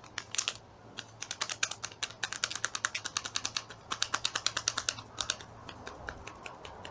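Paper sachet of ground black pepper tapped with a finger to shake pepper out over the bowl: a fast run of light ticks, about eight a second, dying away about five seconds in.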